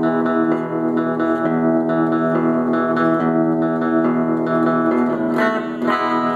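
Electric guitar strumming the song's chorus chords, an E with the fifth and octave and a B7, in a steady rhythm with the chords ringing between strokes.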